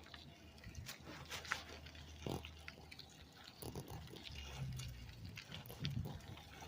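Short, irregular animal sounds over a low steady hum.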